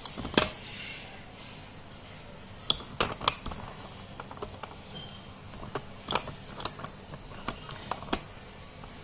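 Hard, dry edible clay pieces being bitten and chewed close to the microphone: separate sharp crunches, the loudest about half a second in, then a cluster around three seconds and more between six and eight seconds.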